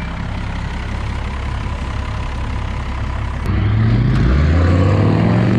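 Off-road vehicle engine running steadily, then revving up about three and a half seconds in, its pitch rising and holding as the vehicle powers along the trail.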